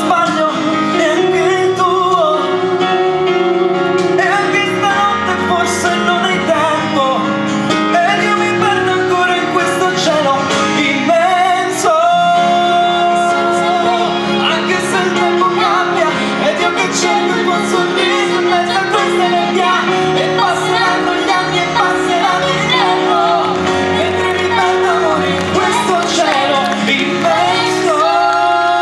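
Live acoustic band music: a slow passage of sustained chords over a steady bass, with a wavering melody line on top.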